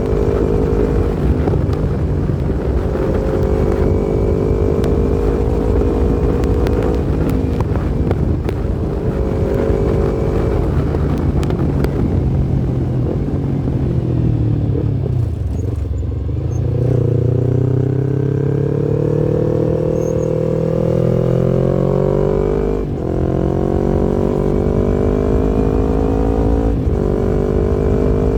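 Yamaha MT-25's 250 cc parallel-twin engine running under way: steady at first, its pitch falls as it slows about halfway through, then rises as it accelerates again, with a short dip at each of two gear changes near the end.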